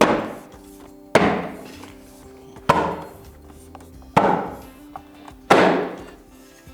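Five sharp blows about a second and a half apart, each with a ringing decay, as snap-on trim is tapped onto its mounting clips. Steady background music underneath.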